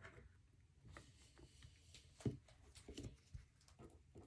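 Near silence with a few faint, scattered clicks of a Zero Tolerance 0562 folding knife's metal pocket clip and handle being handled in the fingers, as the clip is pried back to free its screw.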